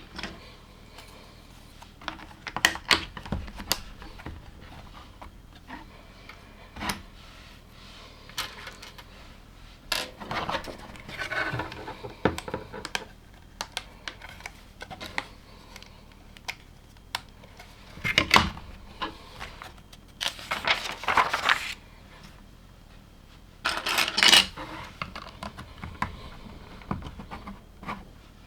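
Plastic LEGO pieces clicking and rattling during building: scattered sharp clicks, with a few longer clattering bursts as loose pieces are stirred.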